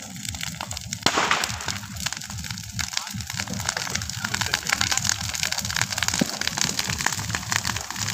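Large bonfire of dry brush and branches crackling and popping steadily, with one louder crack about a second in.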